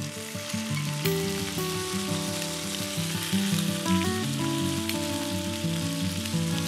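Bratwurst sausages sizzling steadily as they fry in butter in a pan, with background music playing.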